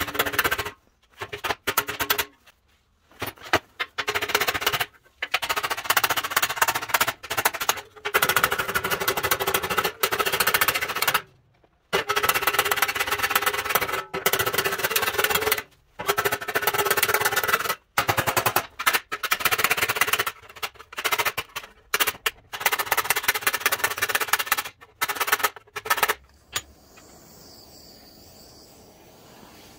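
Hammering on sheet steel: rapid runs of sharp metallic strikes in short bursts, broken off abruptly again and again, working a crease out of a folded panel edge over a dolly. Near the end the hammering stops and only a faint steady hiss remains.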